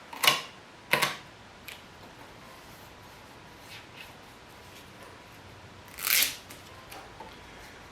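Workshop handling noise as a wheel's bearing area is sealed off: two short rasps in the first second, a faint one just after, and a longer rasp about six seconds in, with a few small clicks between.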